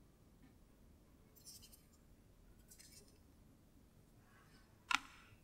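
Faint handling of a smartphone: two brief scraping rustles, then a single sharp tap near the end as the phone is set against the wireless charging pad.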